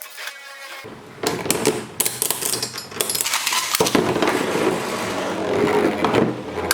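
Infinity Nado spinning tops with metal rings clashing and scraping against each other in a battle arena. It starts suddenly about a second in as a dense, continuous clinking and rattling clatter.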